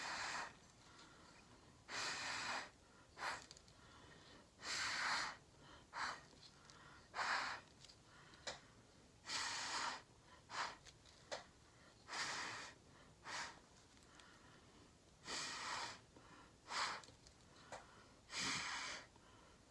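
Someone blowing through a straw-like tube in repeated short and longer puffs, about fifteen of them at uneven intervals, to push wet acrylic pour paint outward across the surface.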